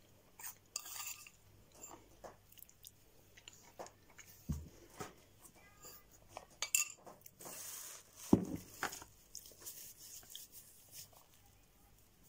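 A metal teaspoon scraping and clinking against a porcelain cup of crumbled chalk, in a run of separate short knocks and scrapes. The loudest knock comes about eight seconds in. Quiet crunching of chalk being chewed lies between them.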